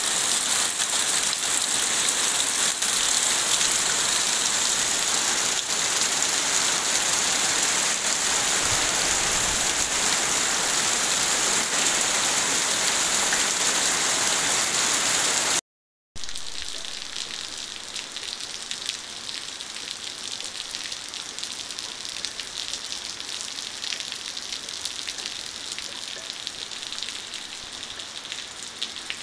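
Heavy rain falling steadily. About halfway through it cuts out for a moment, then comes back lighter, with scattered drops pattering.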